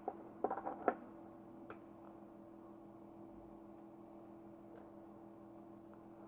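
A few light clicks and knocks in the first second as the repaired room heater is connected to power, then a faint steady hum.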